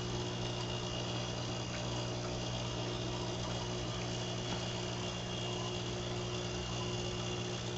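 Aquarium filters and air pumps running: a steady electrical hum under an even hiss.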